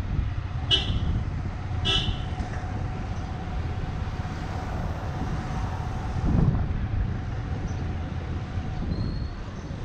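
Two short vehicle horn beeps about a second apart, over a steady low rumble of street traffic and a faint steady hum.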